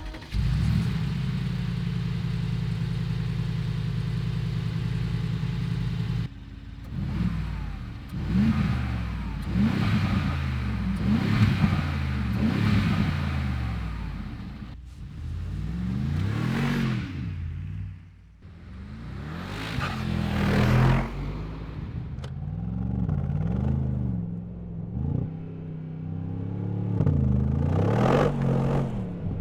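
Mercedes-AMG G63's 4.0-litre twin-turbo V8 running at a steady engine speed for about six seconds, then repeatedly revving up and falling back in pitch under throttle and lift-off.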